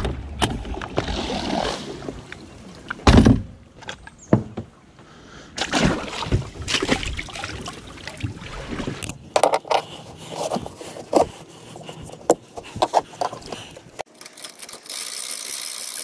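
Splashing in shallow water with irregular knocks and thumps, from wading and handling things around a small boat. About two seconds before the end the sound changes to a steady hiss.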